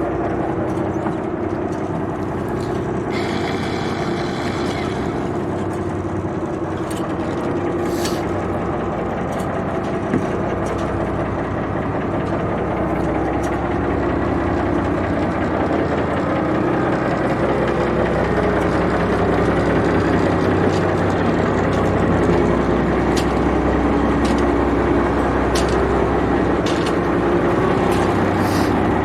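A boat's engine running steadily with a low hum, with a brief higher whine about three to five seconds in.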